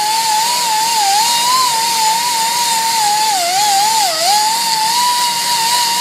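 Die grinder spinning a white bristle disc over an aluminum cylinder head deck, scrubbing off old gasket material at high speed with only light pressure. A steady high whine over a hiss, its pitch sagging a little around three to four seconds in as the disc bites.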